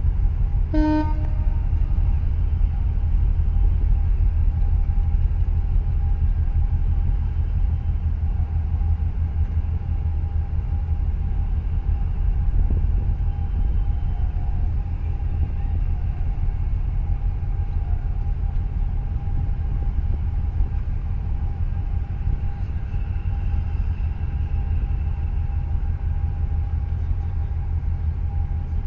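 Deep, steady engine rumble of a large container ship and its attending tug moving slowly through the harbour, with a faint steady hum above it. A brief short toot about a second in.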